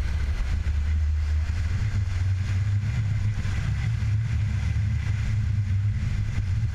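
Steady low wind rumble on the microphone mixed with the rush of water and spray along the hull of a ngalawa, a wooden outrigger sailing canoe, running under sail.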